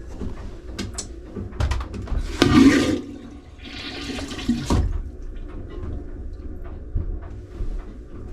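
Boat's marine toilet flushing as antifreeze is run through it for winterizing. There are two loud rushing bursts, one about two seconds in and another about a second later, over a quieter trickle.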